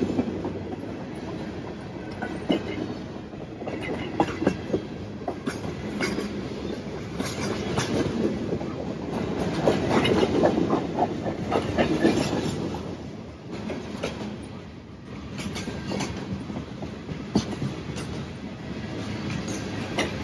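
Freight cars of a long train rolling past: a continuous rumble of wheels on rail with irregular clicks and clacks over the rail joints, swelling louder about halfway through.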